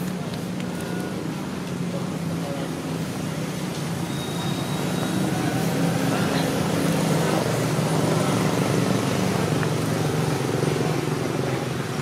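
A motor vehicle's engine running steadily, growing louder from about six seconds in and easing off toward the end.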